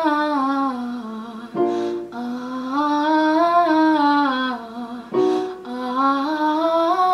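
A woman singing short scale phrases that step up and back down in pitch, three in all, with a keyboard note sounding in each short gap. It is a deliberately underdeveloped chest voice: air in the tone, sung with the head-voice muscles.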